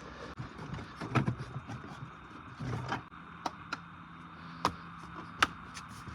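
Irregular sharp clicks and knocks of hard parts being handled, over a steady hiss.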